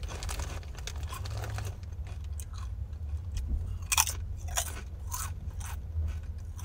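A person biting and chewing crunchy baked pizza-flavoured square crisps, with irregular crunches and the sharpest one about four seconds in.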